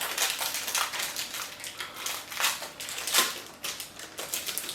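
Foil wrapper of a Magic: The Gathering booster pack crinkling as it is torn open, in irregular crackly scrunches.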